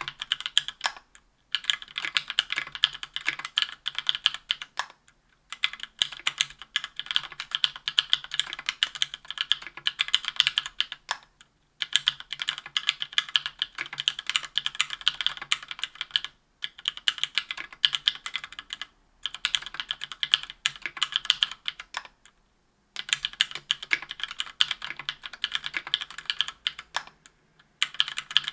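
Typing on a keyboard with stock, unlubed SP-Star White Meteor 57g linear switches in an aluminium 60% case with an aluminium plate and GMK keycaps. Rapid keystrokes come in runs of a few seconds, broken by short pauses.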